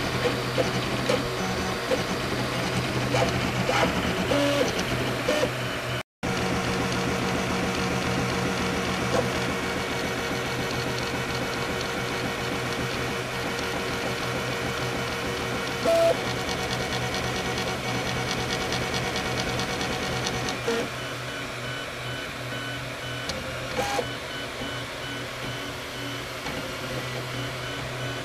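Flsun i3 3D printer running a print. Its stepper motors whine and buzz in changing patterns as the print head and bed move, over a steady fan hum. The sound cuts out completely for a moment about six seconds in and is a little quieter near the end.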